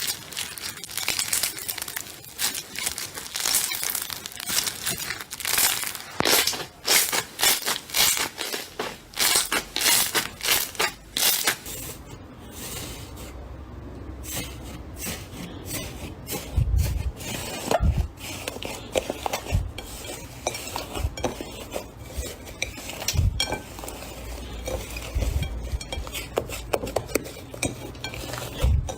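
Slime being handled for ASMR: a dense run of crisp clicks and crackles for the first twelve seconds or so, then softer squishing with a few low thumps.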